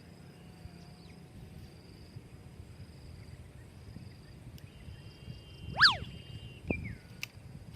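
Insects chirping steadily in a high, on-and-off trill. Near six seconds comes a short, loud whistle that sweeps up and back down, and just after it a soft thump.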